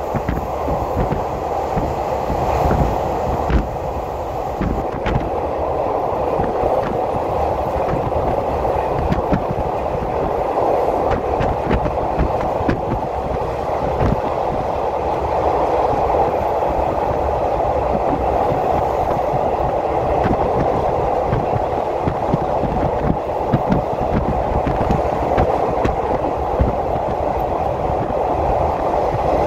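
Passenger train running along the track, heard from on board: a steady rumble and hiss of the wheels on the rails, with scattered small clicks.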